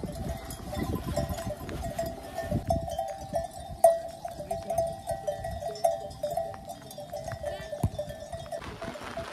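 Bells on a grazing flock of sheep clanking continually in a jumble of short, overlapping tones, stopping shortly before the end. Wind rumbles on the microphone in the first few seconds, and two sharp clicks come about 4 and 8 seconds in.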